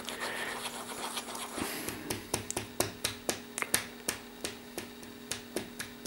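Steel nib of an Inoxcrom IXC Nature fountain pen tapping and scratching lightly on notebook paper, a quick run of faint clicks about five a second, as the pen is tried to see whether the ink flows. A steady low hum runs underneath.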